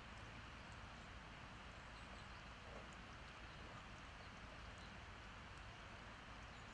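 Near silence: steady, faint outdoor background hiss, with a few faint, short high ticks scattered through it.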